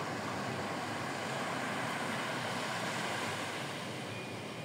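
Small waves washing onto a sandy beach: a steady surf hiss that swells a little and then eases, with some wind.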